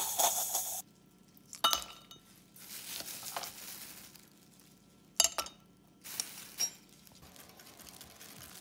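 A stovetop moka pot hissing as the coffee brews, cut off sharply under a second in. Then ice cubes clink against a porcelain cup: two sharp ringing clinks a few seconds apart, with a few fainter taps.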